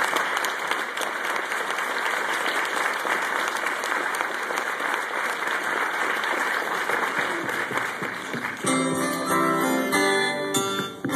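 Audience applauding steadily; about three-quarters of the way through, music starts up and takes over.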